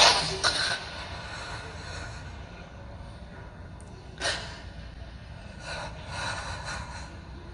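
A reciter's sharp, noisy breaths between verses: a loud intake right at the start, another a little after four seconds, and softer breathy sounds near the end.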